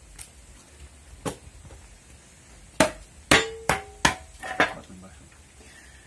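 Sharp knocks of a paintbrush and metal putty knife against a small paint pot: two light taps, then about five loud knocks close together in the middle seconds, some leaving a short ringing.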